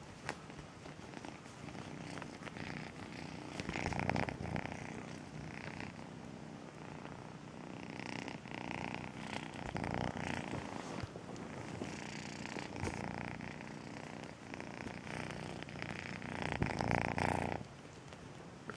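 Kitten purring close to the microphone, swelling louder several times for a second or two, then dropping off sharply near the end.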